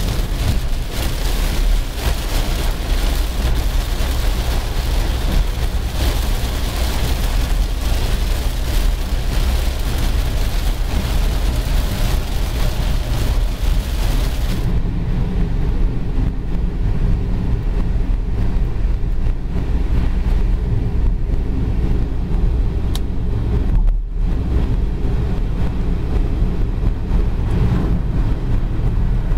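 Heavy rain beating on a moving car's roof and windshield over road noise, heard from inside the cabin. About halfway through the rain hiss stops abruptly, leaving only the steady low rumble of the car driving.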